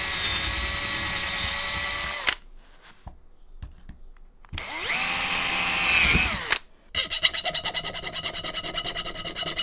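Cordless drill boring holes in an aluminium plate: it runs steadily for about two seconds and stops, then after a pause spins up again for a second hole and winds down. From about seven seconds in comes quick, rhythmic scraping of a hand tool along the aluminium edge, finishing the milled frame by hand.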